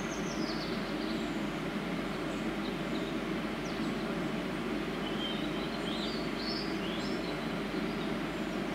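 Steady low background hum at a closed railway level crossing, with a few short bird chirps about five to seven seconds in. No warning bell strikes or passing train stand out.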